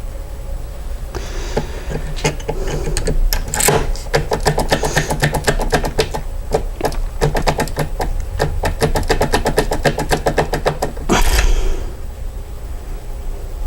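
Brass depth key clicking and rattling in a Schlage lock cylinder as it is pushed in and wiggled, the pin stacks ticking against its cuts in a rapid run of clicks, wiggled to see whether any pin marks it. A short scraping rush follows near the end.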